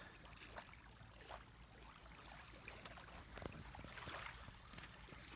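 Near silence: faint outdoor background with a few scattered soft clicks.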